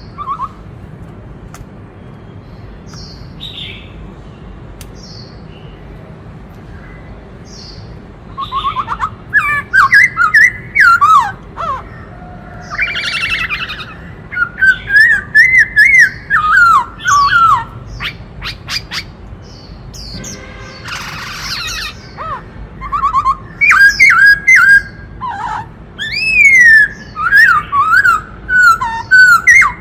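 Black-throated laughingthrush singing. It gives a few faint short calls, then from about eight seconds in loud, rapid phrases of whistles that bend up and down, mixed with sharp high notes.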